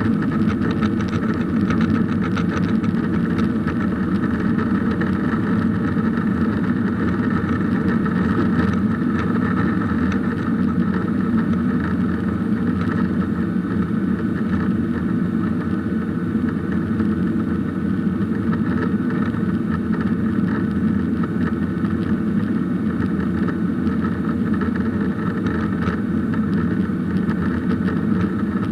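Steady cabin noise of a Boeing 737-800 with CFM56-7B turbofans: engine hum and rushing air heard inside the passenger cabin, unchanging throughout.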